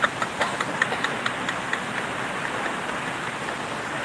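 Steady rushing background noise, with a few faint short ticks in the first second and a half.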